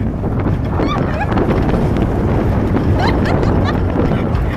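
Wind buffeting the microphone of a camera riding a roller coaster, over a steady low rumble of the moving train. Brief high cries from the riders come about a second in and again around three seconds in.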